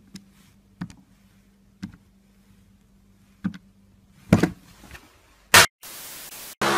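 Keys of a scientific calculator being pressed: about six separate clicks, irregularly spaced, over a faint steady hum. Near the end comes a short loud burst of TV static hiss that drops to a steadier hiss.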